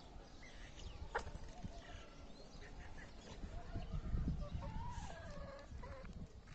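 Chickens clucking softly while foraging, with short scattered calls and a longer falling call about five seconds in. A low rumble swells around four seconds.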